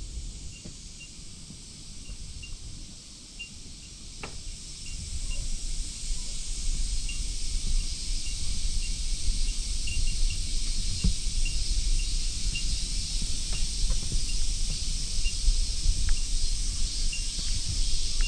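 Steady high-pitched insect chorus, with a low rumble of wind on the microphone that grows louder about five seconds in.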